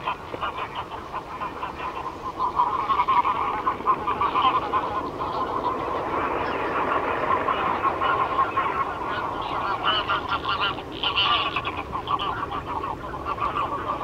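Several greylag geese calling continuously in a rapid, overlapping gabble of short honks, louder from about two seconds in.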